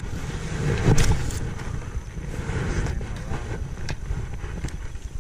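Wind buffeting the camera microphone as a steady low rumble, with a few sharp clicks and one louder knock about a second in.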